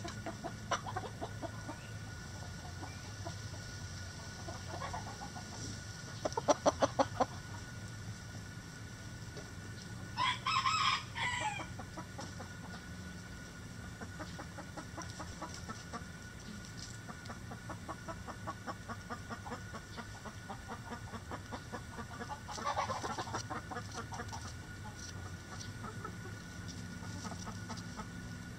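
A flock of backyard hens clucking, with a quick run of clucks about six seconds in. A louder call about ten seconds in and another round of calls about twenty-three seconds in stand out.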